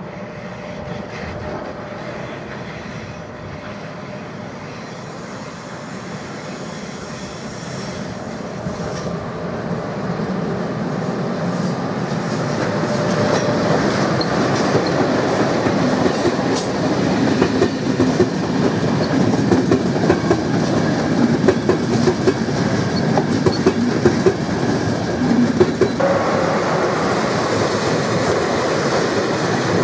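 Passenger train hauled by an electric locomotive approaching and running past, its wheels clattering rhythmically over the rail joints, growing steadily louder as it nears.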